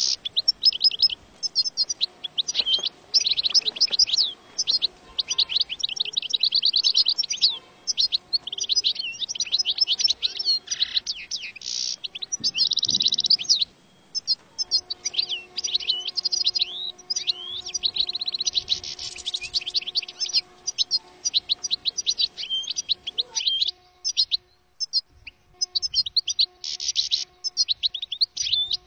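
European goldfinch song: a near-continuous, fast, tinkling twitter of short notes mixed with rapid trills and buzzy rattles. A faint steady hum sits underneath from about halfway on.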